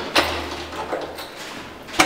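Key and lock of a wooden front door being worked: a sharp metallic clunk just after the start, smaller clicks and rattles, and another sharp click at the end as the lock gives.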